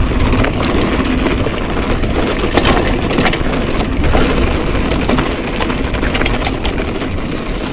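Mountain bike rolling down a rocky dirt trail: tyres crunching over loose stones under a steady low rumble, with the bike rattling and scattered sharp clacks and knocks from stones and the frame.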